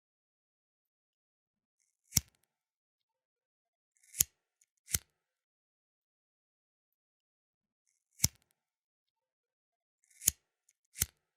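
Flint lighter being worked, giving six sharp metallic clicks spaced one to four seconds apart, two of them coming as quick pairs under a second apart.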